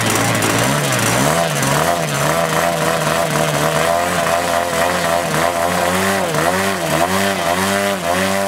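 Engine of a large-scale RC model airplane running on the ground, its pitch rising and falling again and again as the throttle is worked up and down.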